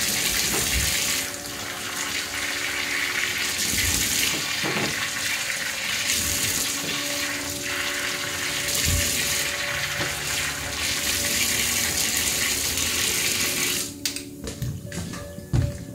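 Tap water running into a stainless steel sink and splashing over peeled green bananas being rinsed by hand. The tap is shut off near the end, leaving a few light knocks in the sink.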